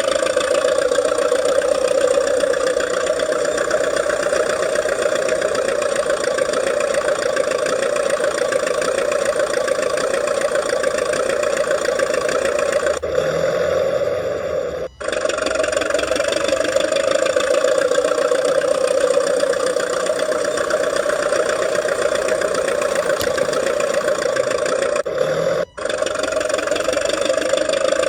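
RC model DT-54 bulldozer running under load in snow, a steady even-pitched mechanical hum that cuts out briefly twice, about halfway through and near the end.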